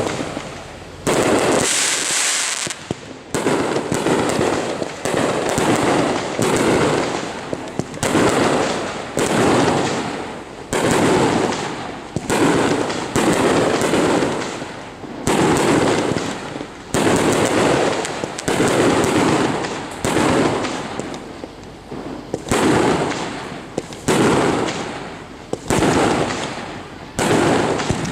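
Consumer fireworks going off in a long run of sharp bangs, about one a second, each dying away before the next.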